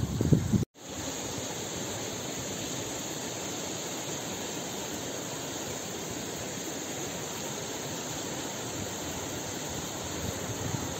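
Wind buffeting the microphone for the first moment, then after a brief cut the steady, even rushing of a mountain stream.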